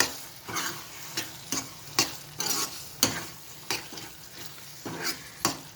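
Spoon scraping and knocking against a pan, about twice a second, as a thick green masala paste with yogurt is stirred while it sizzles in oil.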